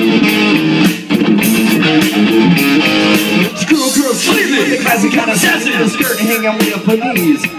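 Live rock band playing loud with electric guitar, bass guitar and drums; a singer's voice comes in over the band about halfway through.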